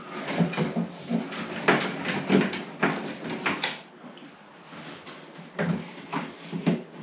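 Irregular short knocks and scrapes of fibreglass cable rods being pushed and worked through holes in a plasterboard ceiling, feeling for the other rod in the void above; sparser for a moment in the middle.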